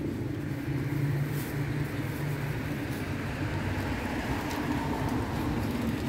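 Steady low engine hum of motor traffic.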